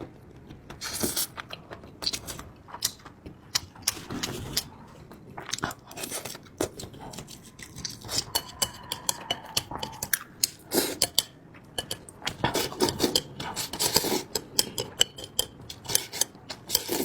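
Close-miked chewing of spicy noodles, with many irregular short wet smacks and clicks.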